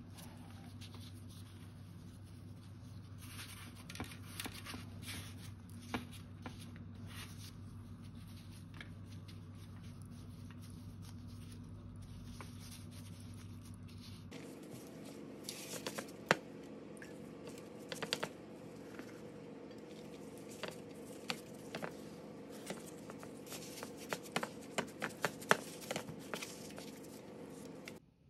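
Disposable-gloved hands pressing dough into crumbly streusel topping, with soft rustling and scattered sharp crinkles and clicks that grow frequent in the second half. A steady low hum runs underneath and changes about halfway through.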